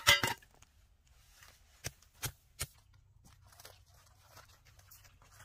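Digging tool striking stony ground: a loud ringing clank at the start, then three sharp knocks in quick succession, followed by faint crunching on dry grass and gravel.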